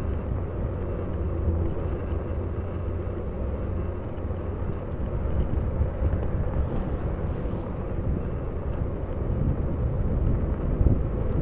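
Steady low rumble of riding along a trail: wind on the microphone and tyre noise.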